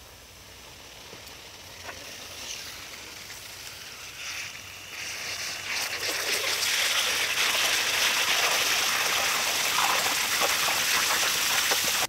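Red-hot brass ingot quenching in a shallow pan of water: the water sizzles and bubbles around the hot metal. It grows louder about halfway through, then holds steady.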